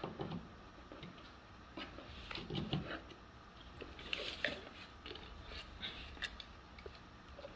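Scattered light clicks and rustling as a string of patio lights with plastic bulbs on black cord is handled and pulled from a cardboard box.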